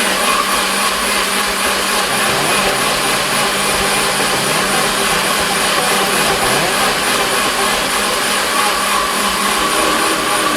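Electric blender running steadily, blending chunks of pineapple, lemon, ginger and garlic into juice.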